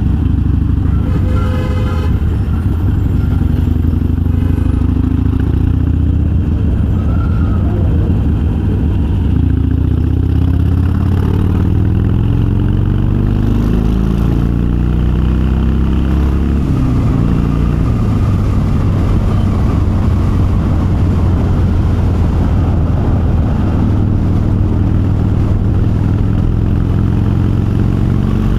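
Harley-Davidson Sportster's V-twin through Vance & Hines Twin Slash 3-inch slip-on mufflers with quiet baffles, running under way: engine pitch climbs under throttle about a third of the way in, drops back just past the middle, then runs on more steadily.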